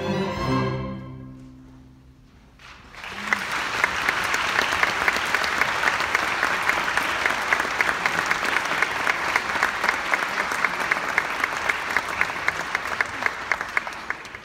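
A string orchestra's final chord rings and dies away in the hall's reverberation, then the audience applauds for about ten seconds, with sharp individual claps standing out.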